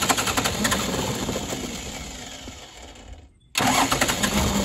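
The diesel engine of a 1987 Mitsubishi Fuso truck being cranked on the starter in two goes: a long crank that fades a little and stops abruptly about three seconds in, then a second crank starting half a second later.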